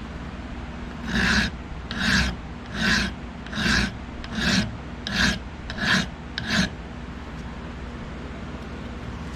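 Hand file scraping across the protruding steel end of the knife's tang, eight even strokes about three-quarters of a second apart that then stop. The end is being filed down flat so it can be peened over the handle.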